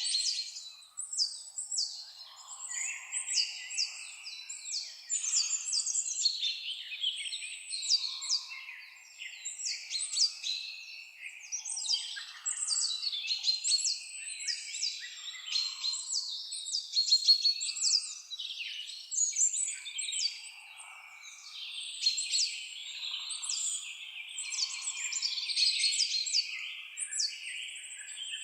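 Several songbirds singing and chirping at once, a dense chorus of quick high whistled notes and trills.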